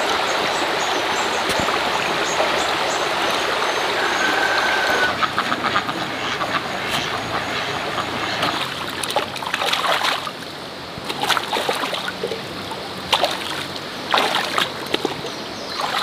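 Shallow stream running over rocks, a steady rush. About five seconds in it gives way to quieter, irregular splashes and knocks.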